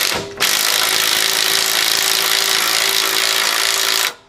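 A power tool runs steadily for nearly four seconds, driving a sway bar end link nut tight, and stops abruptly near the end.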